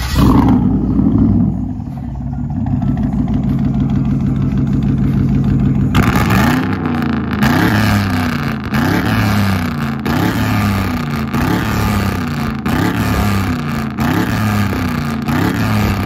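Chevrolet Silverado pickup's engine through a loud aftermarket exhaust: a quick rev at the start, a steady idle, then from about six seconds in a fast run of short revs, rising and falling about one and a half times a second.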